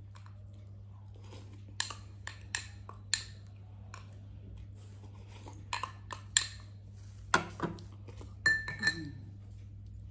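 Eating clinks against a dish: about a dozen sharp clinks and taps in irregular clusters, a few ringing briefly near the end.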